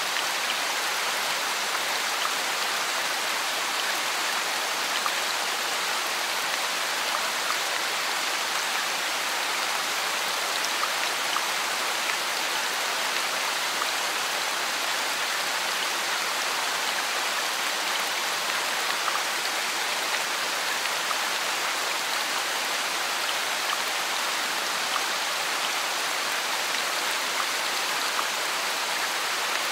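Rain falling steadily: a dense, even hiss with no change in strength and no separate louder events.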